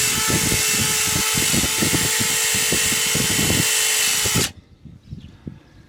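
Small abrasive whiz wheel spinning on a power tool and grinding rust off the differential's gasket surface, with a steady motor whine under rough scraping. The tool stops suddenly about four and a half seconds in.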